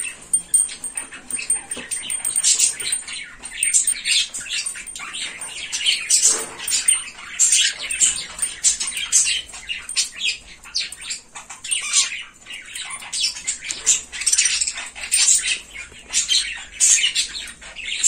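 Cockatiels calling in short, scratchy chirps, one after another in an irregular string.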